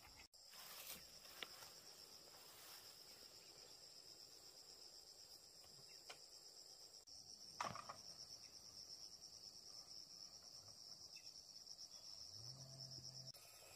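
Faint, steady high-pitched trill of insects, with a fine rapid pulse, that stops shortly before the end. A single faint knock sounds about eight seconds in.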